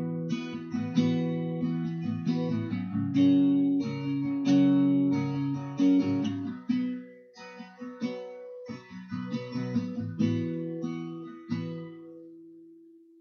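Guitar chords strummed and left to ring, as a song's intro, with brief breaks about seven and nine seconds in. The playing fades toward the end.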